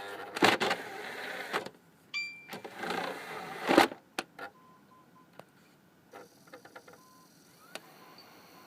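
Xbox 360 Slim DVD drive whirring in two bursts of about a second and a half each, followed by a few sharp clicks. This is the drive's motor working as a disc ejects, a noise the owner doubts is normal.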